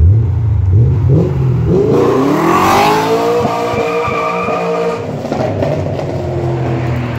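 Dinan-tuned BMW E39 M5's V8 idling, then revving hard as the car pulls away, its note climbing steeply about two seconds in, holding high, and fading from about five seconds in as the car drives off.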